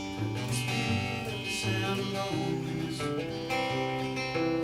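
Acoustic guitar strumming chords in a steady rhythm, with the chord changing several times.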